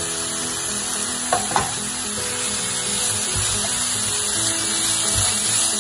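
Chopped mixed vegetables sizzling steadily in hot oil in a nonstick wok while a spatula stirs them, with a couple of short scrapes about a second and a half in. The sizzle lasts while the vegetables are still cooking and dies away once they are done.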